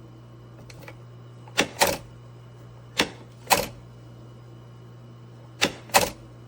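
Sharp clicks in three pairs, about a second and a half apart, over a steady low hum.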